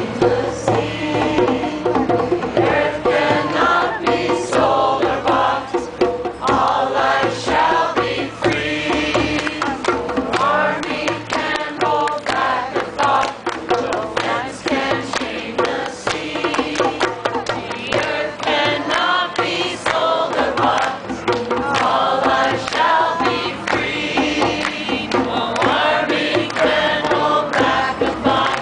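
A group of people singing a chant together to the steady beat of hand drums.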